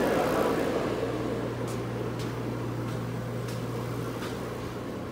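Steady rushing hum of a forced-air propane heater's fan and burner, with a constant low tone, growing fainter. A few faint taps are heard along the way.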